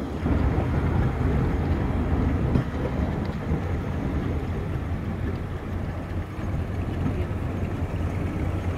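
Train running steadily along the track, a continuous low rumble heard from an open cab-car window, with wind buffeting the microphone.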